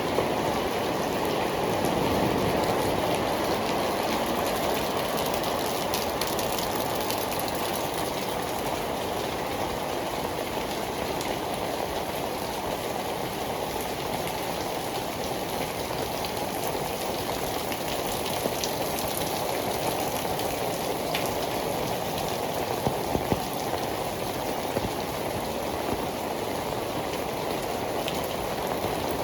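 Heavy rain pouring steadily onto pavement, with a few sharper ticks of drops standing out.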